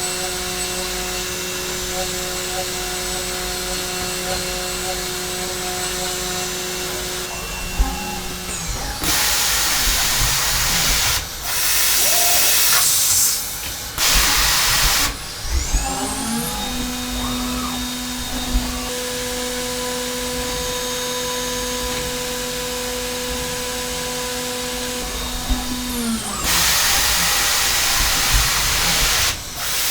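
Hermle C400 machining centre cutting aluminium: the spindle whines steadily for the first several seconds, then come loud bursts of hissing around a tool change. The spindle then spins up with a rising whine, runs steadily at a new pitch for about ten seconds, winds down, and another loud hiss follows near the end.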